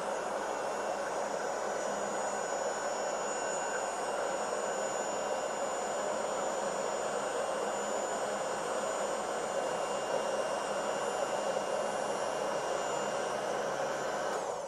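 Heat gun blowing steadily, warming the phone to soften the adhesive that holds the battery in; it cuts off near the end.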